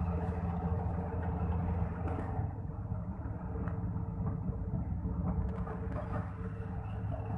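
Volvo EC480DL excavator's diesel engine running with a steady low drone. The higher hiss thins out about two seconds in and comes back partly toward the end.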